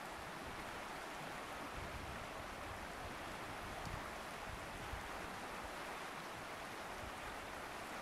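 Broad river rapids rushing steadily: a continuous, even noise of white water.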